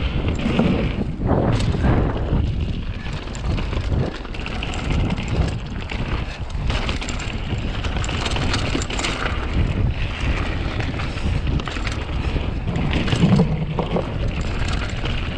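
Mountain bike ridden fast down a dirt trail: wind buffeting the GoPro microphone over a steady rumble of tyres on the ground, with scattered short knocks and rattles from the bike.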